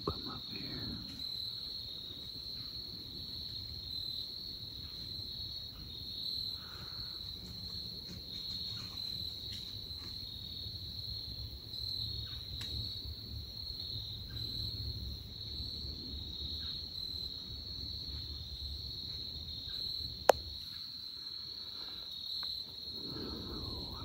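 Insects in the woods singing in a steady, high, slightly pulsing chorus. A single sharp click about twenty seconds in.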